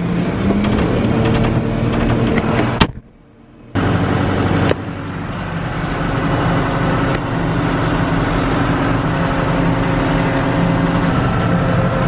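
Farm tractor engine running steadily, heard from inside the closed cab while driving, with a brief dip in level and a couple of sharp clicks about three to five seconds in.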